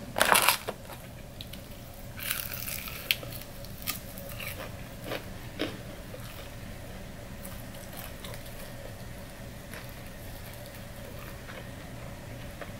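Eating an extra crispy fried chicken wing: a short, loud crackle at the very start, then crunching bites about two seconds in, a few sharp crackles over the next few seconds, and quiet chewing.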